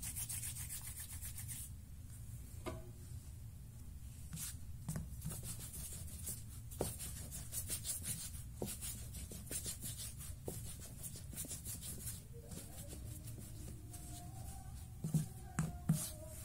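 Hands rolling a rope of simit dough back and forth on a floured wooden board: a quick, dry rubbing of rapid strokes. Two short thumps come near the end.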